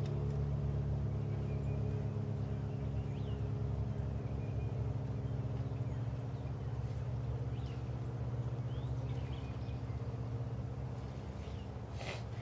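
A steady low mechanical hum, like a running motor, with a few faint bird chirps scattered over it and a brief click near the end.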